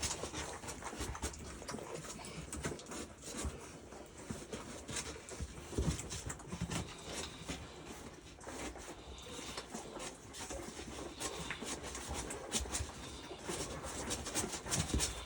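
Three-week-old North American Mastiff puppies nursing on their mother: many small, scattered smacking and shuffling sounds.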